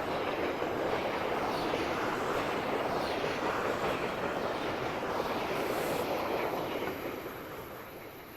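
A train rolling past, a steady rushing rumble of wheels on the rails that dies away over the last couple of seconds as it moves off.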